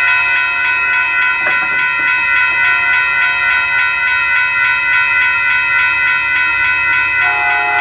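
Railroad grade-crossing warning bell ringing with rapid, evenly repeated dings, signalling an approaching train. Near the end, a new steady tone joins in under the bell.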